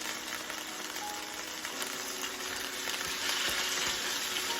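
Thin slices of marinated rib eye steak sizzling in hot oil in a wok, a steady frying hiss that gets a little louder about three seconds in.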